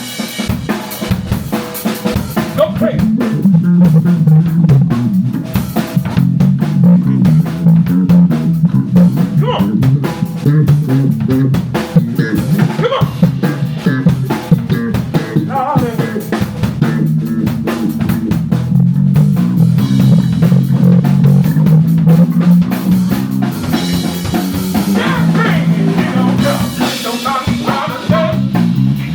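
A live rock band playing: drum kit with snare and bass drum, electric guitar and a strong bass line.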